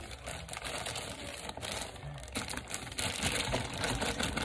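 Zip-top plastic bag crinkling and rustling as it is squeezed and worked by gloved hands to push shea butter out of it, a dense run of small crackles that grows a little louder near the end.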